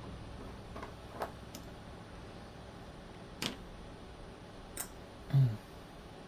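Scattered small clicks and taps of metal knife parts and a small driver being handled during a folding-knife teardown, then one short low thump near the end, the loudest sound.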